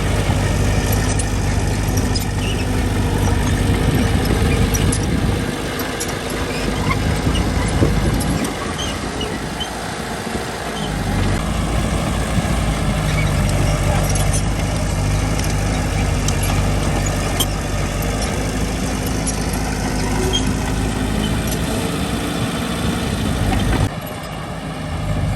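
Heavy diesel engine running steadily, its note and load shifting over time, with scattered small clicks and knocks.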